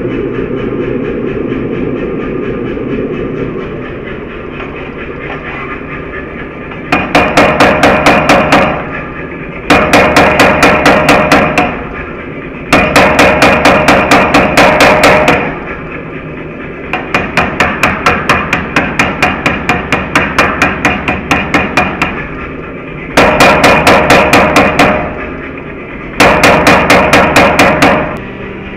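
Power hammer forging a white-hot steel bar: after several seconds of the machine running without striking, it delivers six runs of rapid, heavy blows, about five a second. Each run lasts about two seconds, except the fourth, which is lighter and lasts about five.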